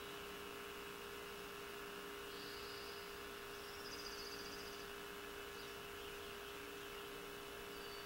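Faint steady low hum, with distant birds giving short high trills about two seconds in, around four seconds in, and again near the end.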